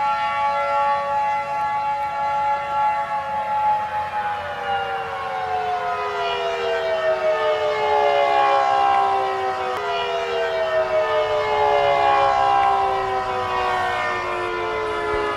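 Civil defense siren sounding a chord-like tone held steady for about four seconds, then winding down slowly in pitch. A second falling tone overlaps in the second half.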